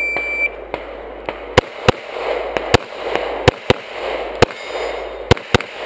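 Shot-timer start beep for about half a second, then about eight pistol shots, mostly in quick pairs, as the shooter engages the stage's targets.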